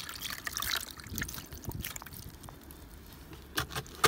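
Water trickling and dripping in a mesh strainer of freshly tumbled wet rocks and snow, with scattered small clicks.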